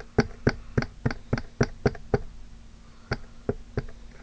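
Paint being pounced through a punchinella stencil onto the box with a dabbing tool: quick, rhythmic tapping, about three or four taps a second, that stops about two seconds in, followed by three more spaced taps near the end.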